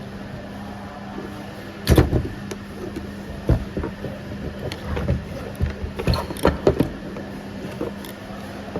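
Irregular knocks and clunks over a steady low hum, the loudest about two seconds in and several more close together near the end.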